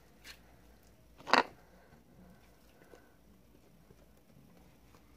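Slime being quietly kneaded and stretched by hand, with one short, sharp sound about a second and a half in.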